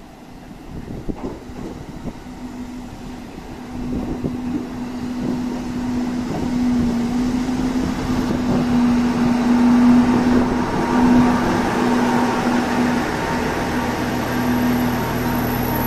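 Two-car JR Central KiHa 25 diesel railcar pulling into the platform. Its engine and wheel noise grow louder as it draws alongside and slows, over a steady low hum, and near the end a low engine drone sets in as it comes to a stand.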